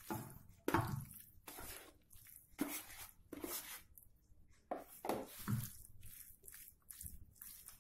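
Raw buffalo meat being dropped and pressed by hand into a nonstick pan: irregular wet squelches and slaps, a few of them louder.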